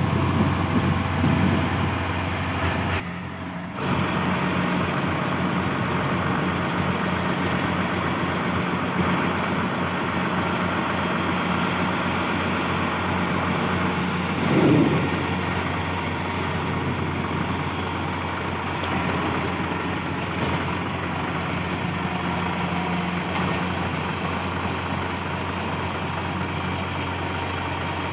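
Kubota DC70 combine harvester's diesel engine running steadily with a constant hum. There is a short dip at about three seconds in, and a brief louder swell about halfway through.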